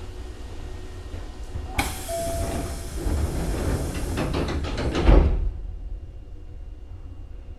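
Nose Electric Railway 5100-series train's sliding passenger doors closing: a sudden rush of air about two seconds in with a brief tone, a run of knocks as the panels run shut, and a heavy thump near the end before the noise cuts off. A low rumble of the standing train lies underneath.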